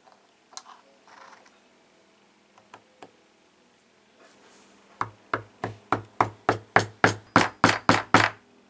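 A hammer tapping on the top of a jeweler's saw frame, driving its tang down into the wooden handle: a steady series of about a dozen sharp blows, roughly three a second, starting about five seconds in and growing louder. Before it come a few faint clicks as the metal parts are handled.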